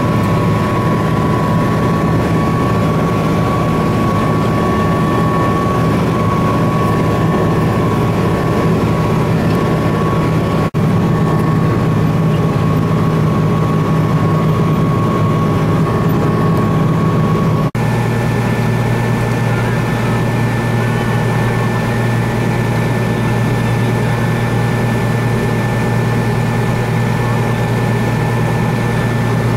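Case tractor engine running steadily while pulling a round baler through the hayfield, a constant mechanical drone. The drone breaks off briefly twice and settles at a different steady pitch after about eighteen seconds.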